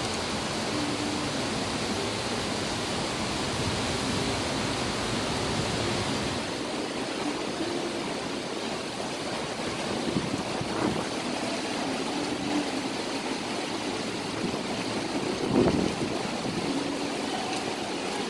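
Steady hiss of rain falling over a dense block of high-rise towers, with city traffic faintly underneath. The hiss eases a little about a third of the way in, and a short bump stands out near the end.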